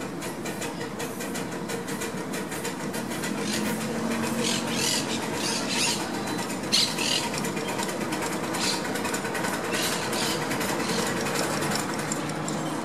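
A 1:4-scale W.G. Bagnall saddle-tank miniature steam train running past close by: a fast, even run of clicks from the wheels on the track, with a few short hissing bursts around the middle.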